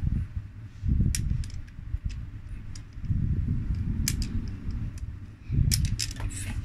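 Small magnetic balls clicking sharply against each other a handful of times as they are pulled apart and rearranged by hand, over a low rumble of handling noise.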